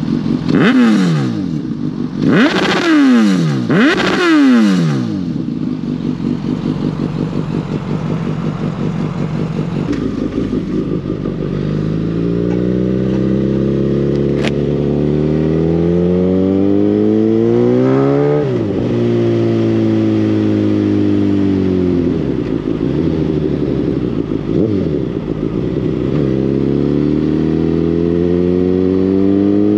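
Suzuki GSX-S1000's inline-four engine and exhaust under way, revs rising and falling as the bike is ridden. It opens with several quick rev swings. From about twelve seconds in the note climbs steadily under acceleration, drops sharply a few seconds later and falls away, then climbs again near the end.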